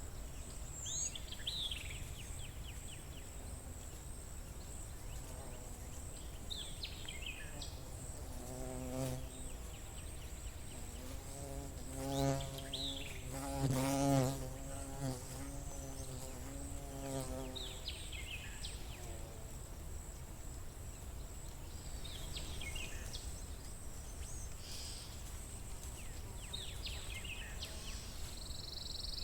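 A flying insect buzzing close past the microphone for several seconds in the middle, its pitch wavering and its level swelling twice as it passes nearest. Around it, a bird repeats a short falling call every few seconds over a steady high thin whine and a low background rumble.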